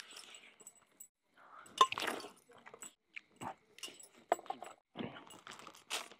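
Close-up eating by hand: wet chewing and lip smacks on rice and chicken, in short irregular bursts, the sharpest about two seconds in, with light clinks of metal bracelets and rings against a steel plate.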